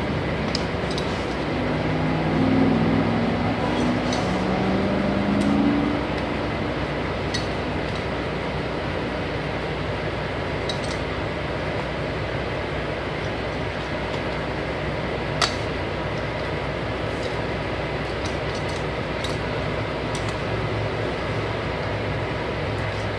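Steady rumble of idling trucks at a diesel fuel island, with scattered light metal clinks from a pipe wrench working on a pump nozzle fitting and one sharper click about fifteen seconds in. A wavering engine hum swells louder from about two to six seconds in.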